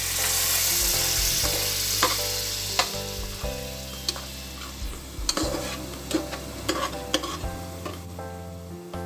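Food sizzling in hot oil in a cooking pan while it is stirred. The sizzle is loudest in the first couple of seconds and then eases off. About seven sharp clicks of the stirring utensil against the pan come through in the second half.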